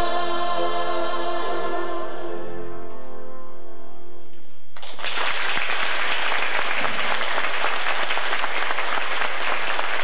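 Mixed-voice choir holding a final sustained chord that fades out about halfway through, then audience applause breaking out suddenly and going on steadily.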